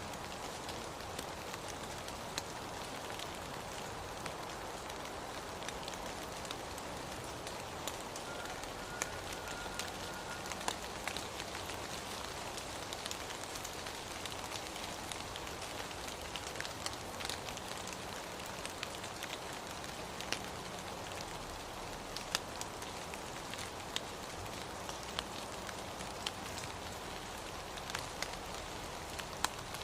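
Steady rain falling, an even hiss with scattered sharp ticks of drops striking a surface.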